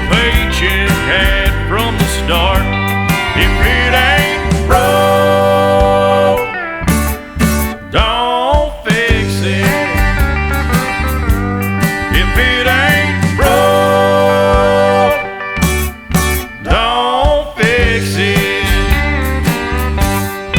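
Country song playing as background music, with guitars and a singing voice over a steady bass.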